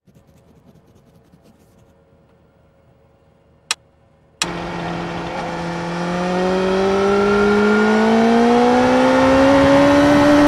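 Quiet for about four seconds apart from a single click, then the sound of a 2017 BMW S1000R's inline-four through an Akrapovic slip-on exhaust cuts in suddenly. The engine note climbs steadily in pitch and grows louder as the bike pulls hard through a gear.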